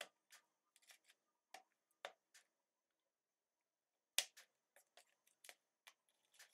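Small hand tool working potting soil and pots, making scattered light clicks and taps, with one sharper click about four seconds in.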